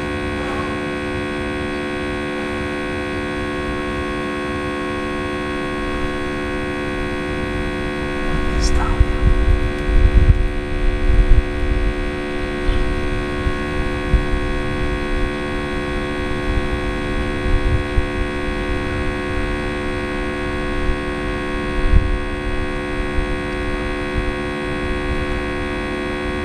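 Budget smoke tester's electric air pump humming steadily as it pushes smoke into the engine intake to find vacuum leaks. A low rumble comes and goes for a few seconds about a third of the way in.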